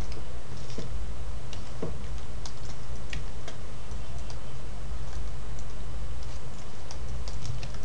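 Scattered, irregular light clicks of a computer mouse and keyboard over a steady low hum.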